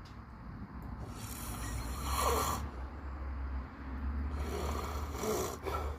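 Snoring in slow, deep breaths: two long snores with a low rumble, the first peaking a little after two seconds in and the second around five seconds in.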